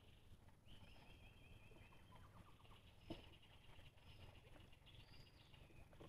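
Near silence: faint outdoor background with thin, high-pitched chirping and trilling calls.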